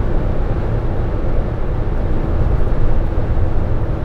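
Steady, low-pitched road and wind noise inside the cab of a Ford Transit-based RV cruising at highway speed. The fiberglass cab-over cap above is freshly lined with sound-absorbing foam, so the noise no longer sounds like an open window.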